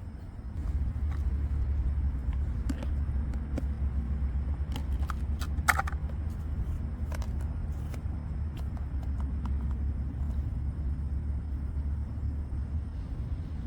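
A steady low rumble with scattered light clicks and taps over it; the rumble grows louder about half a second in, and the sharpest click comes a little before halfway.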